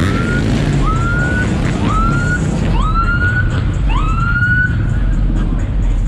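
Police car siren giving short rising whoops, about one a second, five in all, stopping a little under five seconds in. A steady low rumble of vehicle engines runs under it.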